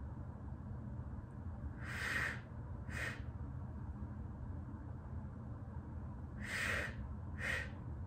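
A woman's breathing as she exercises: two pairs of short, sharp breaths, each a longer breath followed by a shorter one, the pairs about four and a half seconds apart. A steady low hum runs underneath.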